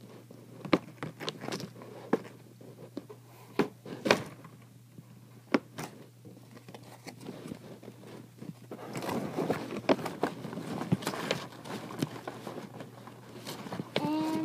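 Scattered clicks and taps of handling, then from about nine seconds in a denser crackling as a clear plastic package is handled.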